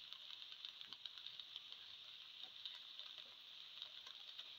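Faint steady sizzle of spinach and tomato frying in oil in a pan, with small scattered crackles as a spatula stirs the chili powder in.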